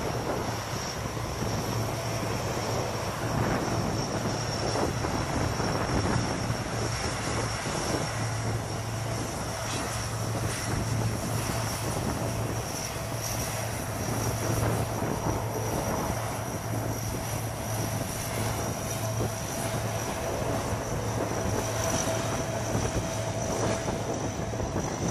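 C-130 Hercules turboprop engines running as the transport taxis along the runway: a steady low drone with an even high whine.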